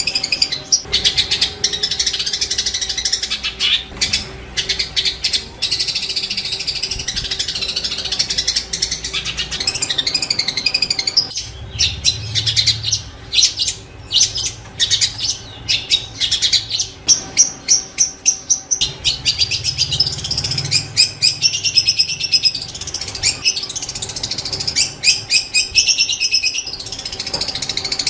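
Long-tailed shrike (cendet) in full song: a fast, varied warbling chatter with rapid runs of short repeated notes, breaking off briefly a little past the middle and then resuming.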